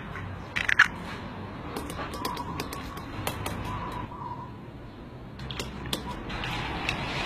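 An egg cracked on the edge of a ceramic bowl with one sharp crack, followed by irregular clinks and taps of a metal spoon against the bowl as the egg is beaten. Near the end a steady hiss comes in.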